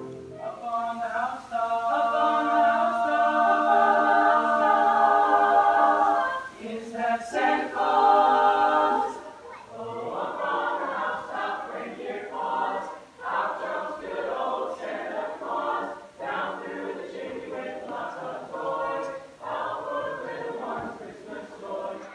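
Mixed show choir of male and female voices singing a cappella in harmony: long held chords for the first several seconds, then, after a cut, a faster, choppier passage.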